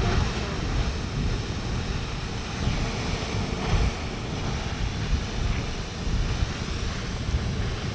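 Grand Geyser erupting: a steady, dense rush of water jetting and falling back, with deep uneven rumbling underneath.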